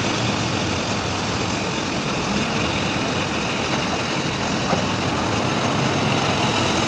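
Heavy earthmoving machinery running steadily, a dense, even engine noise with a faint tick a little past the middle.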